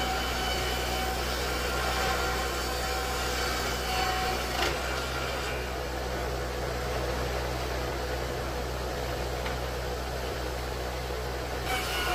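Board edger running with a steady motor hum while its saws cut a board edge; the higher cutting noise drops away about halfway through, and a short louder burst of cutting comes near the end.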